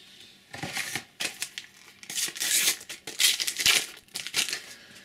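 A sticker packet being torn open, its wrapper ripping and crinkling in a string of short rustles, the longest rip about halfway through.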